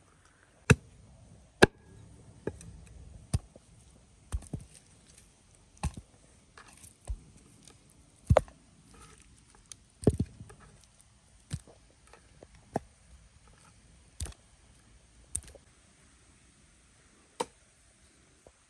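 Knife chopping raw chicken wings on a wooden board: sharp, single knocks of the blade striking the board, unevenly spaced at about one a second, some much louder than others.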